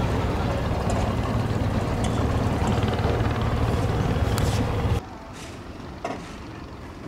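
Motorboat engine running with a steady low drone. About five seconds in it cuts off abruptly to a much quieter background, with a single short knock a second later.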